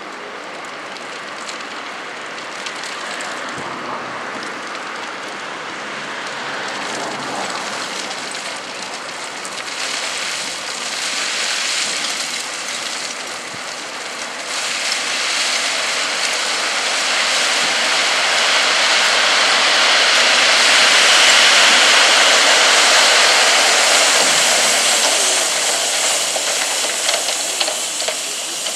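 Dump truck tipping a load of gravel: a steady rush and hiss of gravel sliding out of the raised tipper body and pouring down onto the heap, building to its loudest past the middle and easing near the end.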